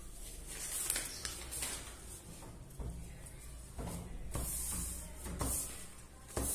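Paper pattern pieces rustling and sliding over cloth as they are pressed and shifted into place on a table: a series of short swishes with a light knock near the end.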